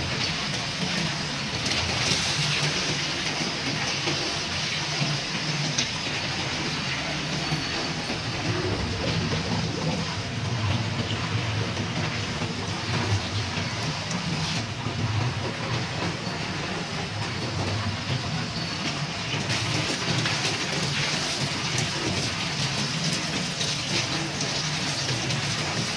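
Water running from a hose and splashing as copper lightning-arrester parts are dipped and rinsed in workshop tanks, over a steady low rumble.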